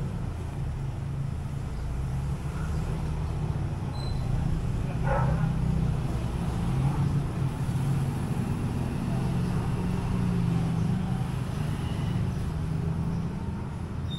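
Steady low outdoor rumble with no speech, with one brief faint sound about five seconds in.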